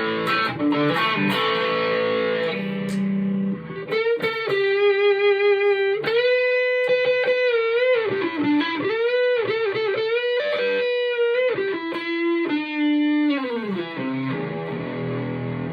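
Electric guitar played through a Marshall MG50 FX amp: chords for the first few seconds, then a single-note lead line with long held notes, string bends and vibrato, going back to chords near the end.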